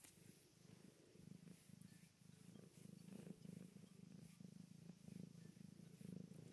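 Domestic cat purring, a faint steady low pulsing that grows a little louder after the first second.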